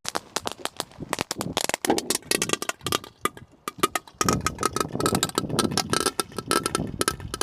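Fireworks crackling: a dense, irregular run of pops and clicks. It eases off about three seconds in, then picks up again, with a steady high tone joining it.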